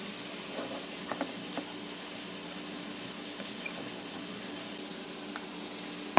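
Metal spoon stirring casareep and water in a small ceramic bowl, with a few faint clinks of spoon against bowl about a second in, over a steady low hiss.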